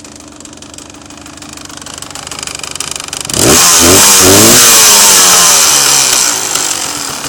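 Honda CRM two-stroke motorcycle engine idling, then revved hard about three seconds in: the revs climb fast, hold briefly and sink back toward idle near the end. The owner says this engine has a knock.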